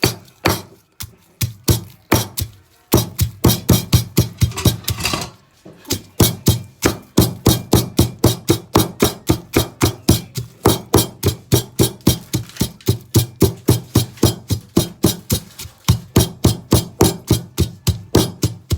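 A pestle pounding chilies in a mortar with steady, even strokes, about three to four a second, pausing briefly about two and a half seconds in.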